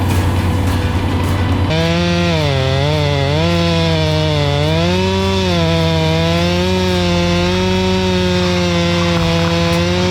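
Chainsaw cutting wood, its engine note dipping and recovering as the chain bogs under load. From about two seconds in it holds near full throttle.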